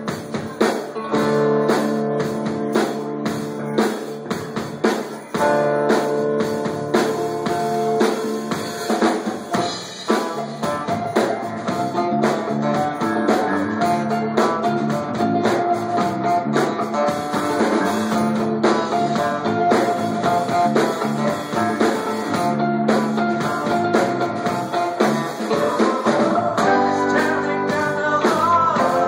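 Live rock band playing with a steady drum beat: acoustic and electric guitars, bass guitar, keyboard and drum kit.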